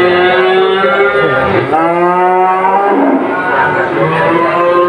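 Cattle mooing: three long, drawn-out calls one after another, the second starting low and rising about a second and a half in.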